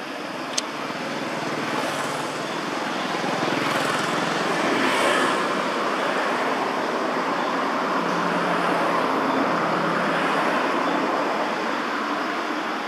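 Steady rumble of passing road traffic, swelling and easing over several seconds, with one sharp click about half a second in.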